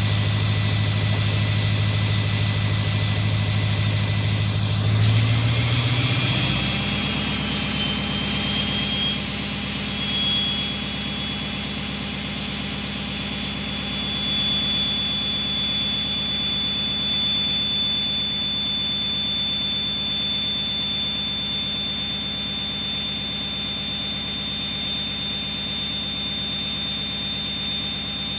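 2006 Ford F-250's 6.0 Power Stroke V8 turbo-diesel running at idle after a cold start. About five seconds in the engine speed steps up to high idle, and the Garrett PowerMax Stage 1 turbo's whistle rises in pitch over a few seconds, then holds as a steady high whine.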